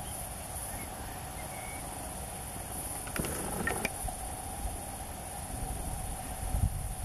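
Insects chirring steadily at a high pitch in a summer hay meadow, over a low rumble. A short burst of clicks and rustling comes about three to four seconds in.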